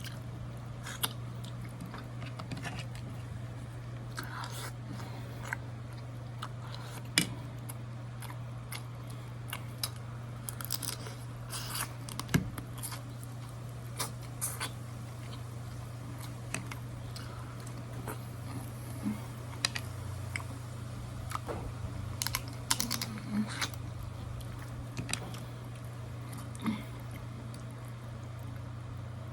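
A person eating crab and lobster by hand: scattered sharp clicks and crunches of shell being cracked and picked, with chewing. A steady low hum runs underneath.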